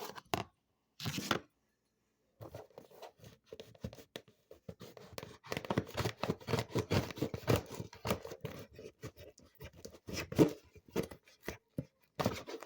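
A parcel being torn and cut open by hand: two short rips at the start, then from about two seconds in a long run of rapid, irregular tearing and scratching at the tape and box.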